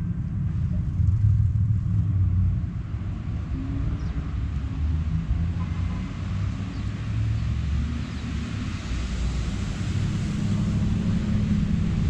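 Wind buffeting the microphone as a low, uneven rumble, with a rushing hiss that swells in the second half.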